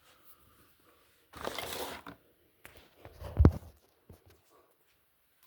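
A single heavy thump on a door, the loudest sound, about three and a half seconds in, preceded a second or so earlier by a short rustling, scraping noise.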